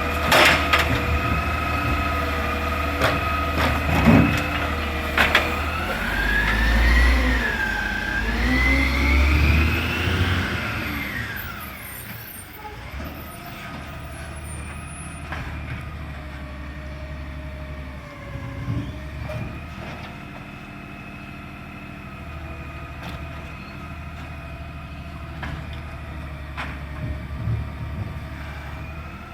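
Side-loader garbage truck's engine running, with a few sharp knocks early on. About a third of the way in it revs up and down for several seconds, then settles to a steady, quieter idle.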